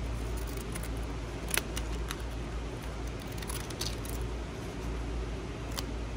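A few sharp snips of decorative-edge craft scissors cutting paper, spread over several seconds, the first snips the loudest, over the steady low hum of garage fans.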